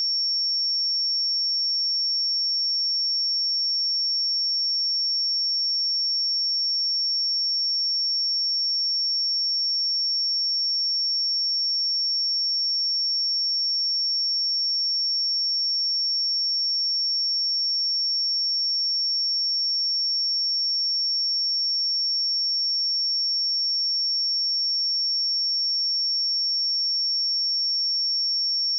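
A steady, pure 5481 Hz sine test tone, a single high-pitched whistle-like note held at constant pitch and loudness.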